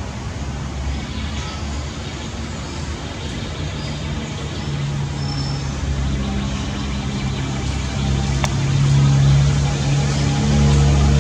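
A motor vehicle's engine running at a steady low drone, growing louder in the second half.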